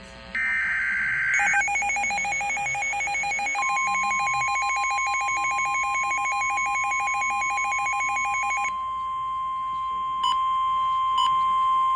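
NOAA Weather Radio emergency alert: the buzzing screech of the SAME data header ends, then a fast electronic beeping starts, and a few seconds in the steady single-pitch 1050 Hz warning alarm tone joins it and holds. The beeping stops about nine seconds in and two short blips follow. The alert announces a severe thunderstorm warning.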